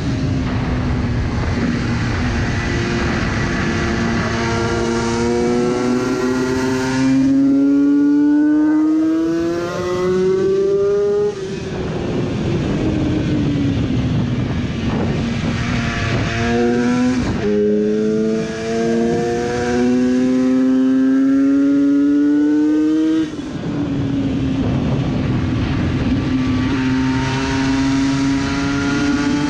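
Onboard sound of a Yamaha 500cc two-stroke racing motorcycle at race speed: the engine note climbs hard, breaks off and falls three times as the throttle shuts and gears change, then climbs again. Wind rushes over the microphone throughout.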